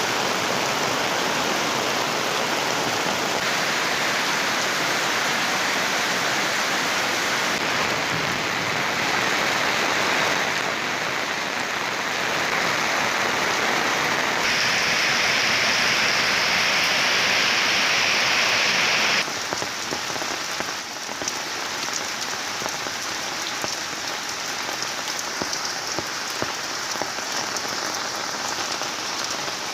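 Heavy rain pouring down in a dense, steady hiss, jumping abruptly in level and tone several times; it is loudest just before two-thirds of the way through, then drops suddenly to a lighter downpour with scattered individual drop ticks.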